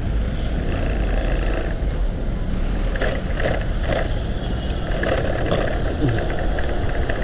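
Road traffic heard from a motorcycle in slow, jammed traffic: engines of the surrounding vehicles with a steady low rumble, and a few short louder sounds about halfway through.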